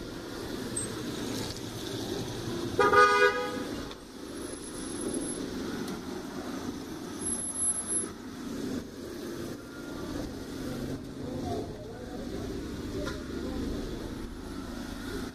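A car horn gives one short honk about three seconds in, over steady traffic noise on a wet city street.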